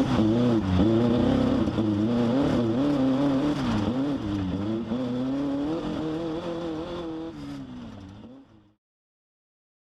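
Off-road race vehicle's engine running hard, its pitch rising and falling again and again as the revs change. It fades away over the last couple of seconds into silence.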